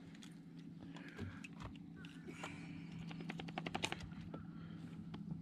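Faint handling noises: scattered clicks and crinkles, thickening into a quick run of clicks about three seconds in, as a plastic bag of bait fish and a catfish being unhooked are handled. A low steady hum runs underneath.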